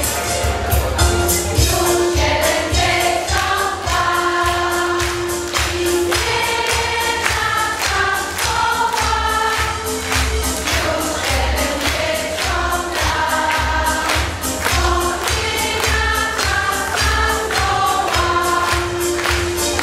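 A large women's choir singing over a backing track with a steady beat and bass.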